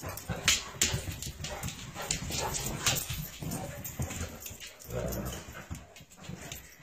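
A Saint Bernard and a German Shepherd puppy playing rough: dog whimpers and small yips over sharp clicks and a low rustle of scuffling.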